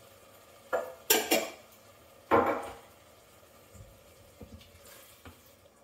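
Kitchen utensils clattering against a stainless steel saucepan: a few sharp knocks about a second in, a louder clatter about two seconds in, then a few faint light taps.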